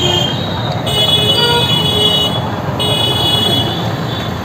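Street traffic with vehicle horns honking over a steady traffic rumble: one horn held for about a second and a half starting about a second in, and a shorter one near three seconds.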